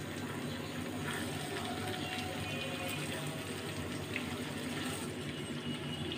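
Green mango pickle bubbling steadily in hot oil in a nonstick pan, stirred with a silicone spatula, with a few soft scrapes.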